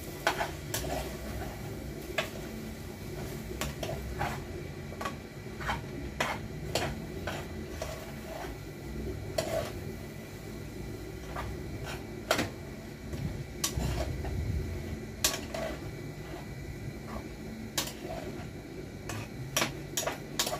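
A metal spoon knocking and scraping against a metal cooking pot while stirring callaloo and chicken, with irregular clinks about one or two a second.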